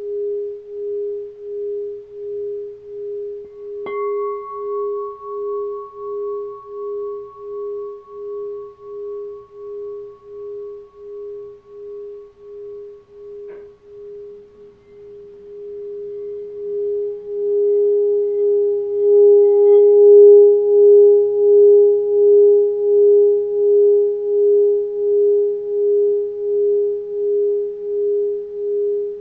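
Smoky crystal singing bowl tuned to G# ringing with one steady, pulsing tone. About four seconds in, a tap of the mallet adds a higher ring. About halfway through, the mallet is run around the rim, swelling the tone louder with a faint rubbing sound beneath it.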